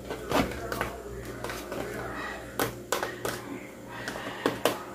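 A metal spoon clicking and tapping against a thin plastic food container as mayonnaise is spooned into it: a dozen or so light, irregular clicks over a steady low hum.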